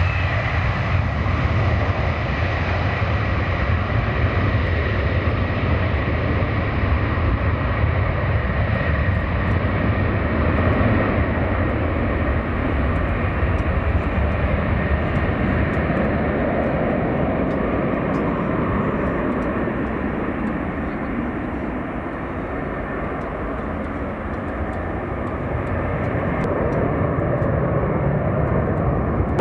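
Airplane engines running, a loud steady rush with a faint high whine over it in the first part.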